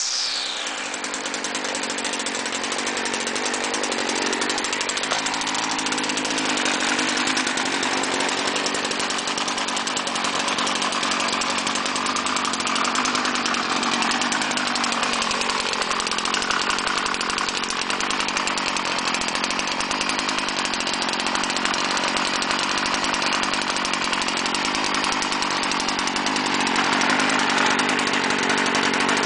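Stihl FS 56 RC string trimmer's small two-stroke engine running steadily.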